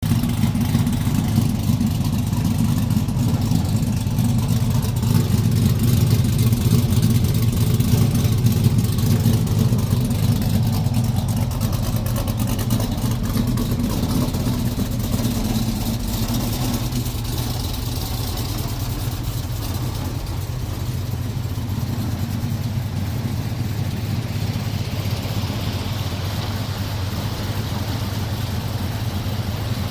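Engine fitted with a Tomahawk camshaft idling steadily.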